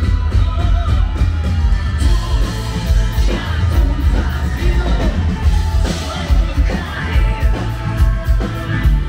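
Live rock band playing, with a male lead vocal over heavy bass and drums, and shouts from the crowd.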